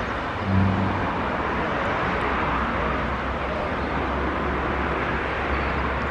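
Steady rumble and hiss of a train running through the station, with a short low tone about half a second in and a deep drone setting in a couple of seconds later.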